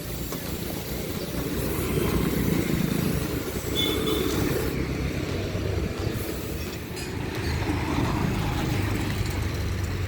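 A motor vehicle's engine running steadily, a low rumble that grows louder about two seconds in.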